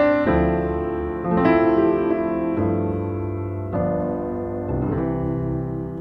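Background piano music: slow, sustained chords, a new one struck about once a second.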